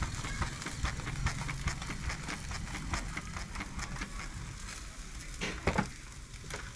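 Chicken and pork sizzling over charcoal on a barrel grill, with steady crackling and ticking and a low rumble of air as the coals are fanned with a sheet of paper. Two brief louder sounds about five and a half seconds in.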